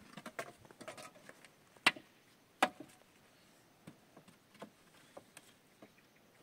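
Dry wooden sticks clattering and knocking together as they are handled and fitted into a lashed stick gate: a flurry of small clicks, then two sharp knocks a little under a second apart about two seconds in, then scattered light taps.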